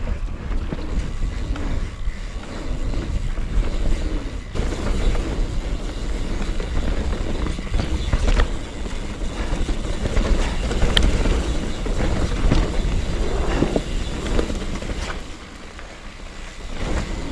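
Mountain bike riding fast down a dirt forest trail: wind buffeting the camera microphone over the steady rumble and rattle of tyres and bike, with a few sharp knocks from bumps. The noise eases briefly near the end.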